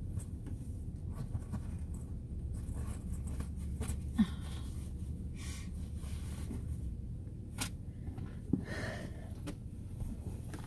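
Quiet vehicle-cabin sounds: a steady low rumble with scattered soft rustles and clicks as someone shifts around in the driver's seat.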